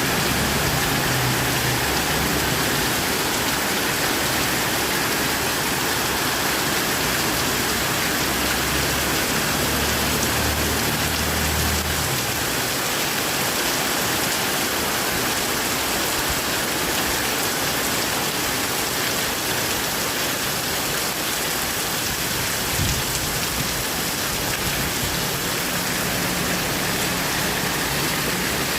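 Rain pouring steadily in a storm, a dense even hiss, with a low rumble coming and going underneath.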